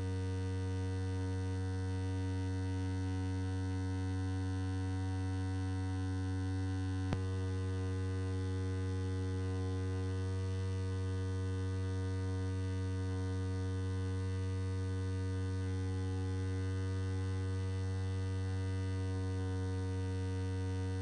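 Electric shaver running steadily, a continuous low buzz, with a single brief click about seven seconds in.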